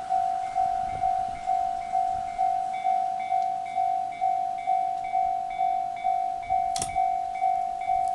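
Japanese railway level-crossing alarm: an electronic bell ringing an even ding-ding-ding, about two strikes a second, each strike one tone that fades quickly. A single sharp click sounds about two-thirds of the way through.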